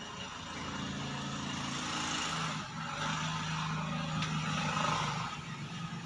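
A motor vehicle engine running with a steady low hum that grows louder toward the end.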